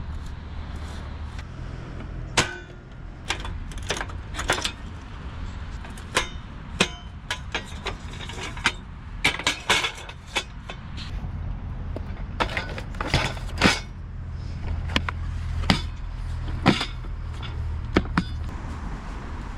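A string of irregular sharp clicks, clinks and knocks, like cooking gear being handled, over a steady low rumble.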